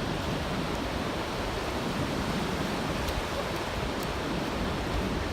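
Ocean surf breaking on the beach: a steady, even rushing noise, with a fluctuating low rumble underneath.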